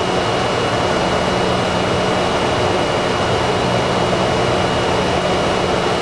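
Steady flight-deck noise of a Boeing 747-400 in its initial climb after takeoff: a constant rush of airflow and engine noise, with a thin high whine and a low hum running through it.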